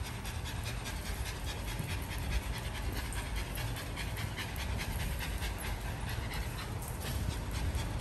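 Small dog panting fast and steadily with its mouth open, a sign of being tired and hot from the heat.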